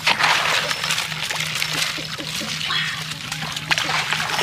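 Shallow floodwater splashing and sloshing as a plastic basket is swept and scooped through it, with a burst of splashing right at the start and continuing choppy splashes after.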